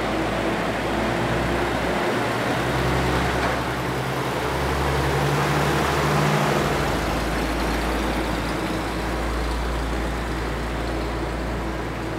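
1952 Dodge B-Series truck's engine running as the truck drives slowly up to and past at close range, loudest about five to six seconds in, then pulling away, its pitch shifting a few times along the way.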